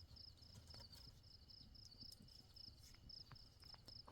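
Crickets chirping faintly at night, short high chirps repeating a few times a second in a steady rhythm, over a low background rumble and a few faint ticks.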